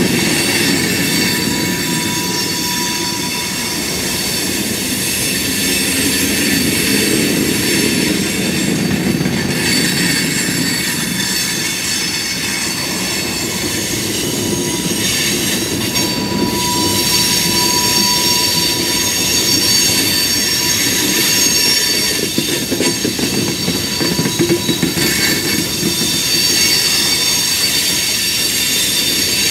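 Freight cars, covered hoppers and then open-top hopper cars, rolling past on the rails with a continuous rumble and a steady high-pitched wheel squeal.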